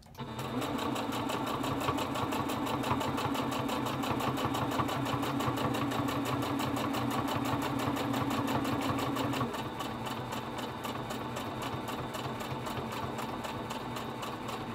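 Domestic electric sewing machine stitching through fabric, running at a steady speed with a rapid, even rhythm of needle strokes. About nine and a half seconds in, the motor slows a little and gets slightly quieter.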